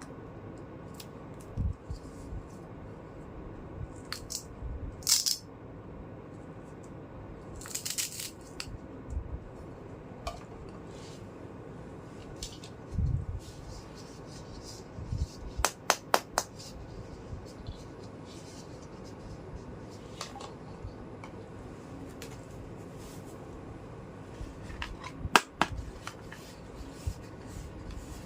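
Small plastic toy kitchen pieces being handled: scattered clicks and taps, two brief scraping rustles, a quick run of four clicks about sixteen seconds in, and one sharp click near the end.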